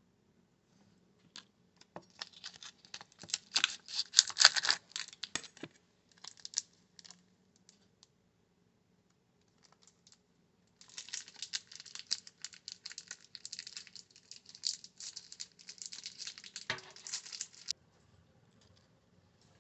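Crinkly, rattling handling noise in two bouts of several seconds each, with one dull knock near the end of the second bout.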